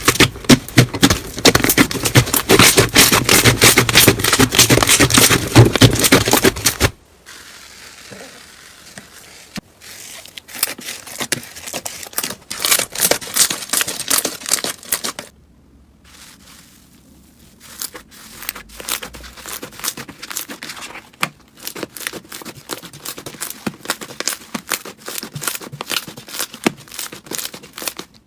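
Slime being squeezed and pressed by hand, a dense run of crackling clicks and pops. Loud for about the first seven seconds, then much quieter, with a brief pause about fifteen seconds in before the crackling resumes.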